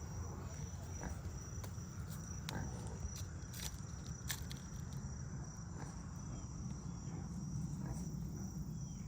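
Faint, steady high-pitched insect trill, crickets, over a low rumble, with a few sharp clicks around the middle.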